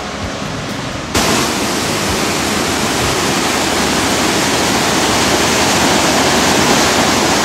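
Fossá waterfall, the rush of water falling down the cliff and tumbling over boulders. About a second in it jumps suddenly louder and brighter, the sound of the white water cascading over the rocks close by.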